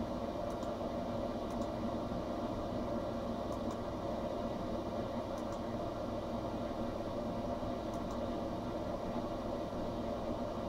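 Small hobby CNC machine running steadily: a constant motor hum and whine that holds one pitch, with a few faint ticks.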